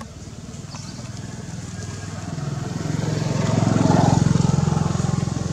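Small petrol engine running steadily, growing louder to a peak about four seconds in, then easing off.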